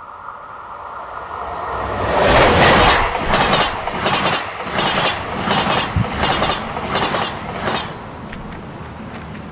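A train passing: a steady high tone at first, then a loud rushing clatter that swells about two seconds in, with rhythmic clacks about twice a second, dying down near the end to a faint regular ticking.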